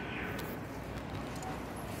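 Steady outdoor background noise, with a few faint short ticks.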